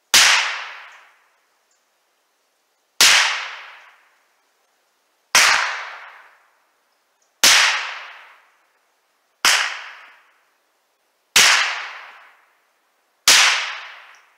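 Seven shots from a Savage .22 rifle, fired about two seconds apart. Each crack trails off over about a second.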